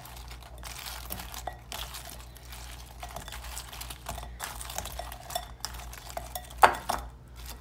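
A utensil scraping and stirring against a pot, scraping out the last of the sauce, with small clinks and one sharp knock near the end.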